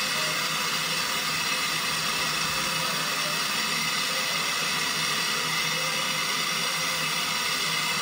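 Handheld gas torch flame hissing steadily as it heats a copper refrigerator line for silver brazing.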